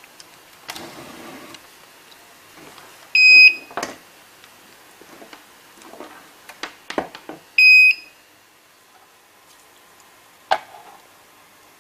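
Computer UPS's on-battery alarm beeping: two short, loud, high-pitched beeps about four seconds apart, the warning that mains power is cut and the inverter is running the load from the battery. Between the beeps come light knocks and rustles of parts being handled, with one sharper knock near the end.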